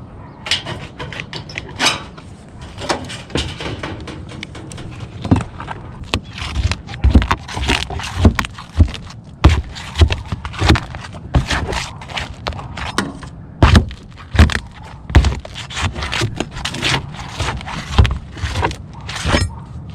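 Irregular hard knocks and clacks mixed with dull thumps, from work on a tile roof: roof tiles being handled, knocked together and set down. The knocks come thicker after the first few seconds, often one or two a second.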